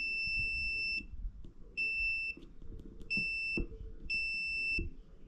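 Digital multimeter's continuity buzzer beeping four times, a steady high tone, the first beep about a second long and the others shorter, with faint taps of the probe between them. The beep signals continuity between the spark plug's shell and ground electrode: the ground is good.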